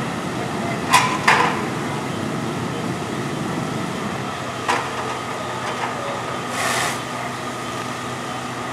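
Steady drone of fire truck engines running, with a few brief distant shouts and a short hiss near seven seconds in.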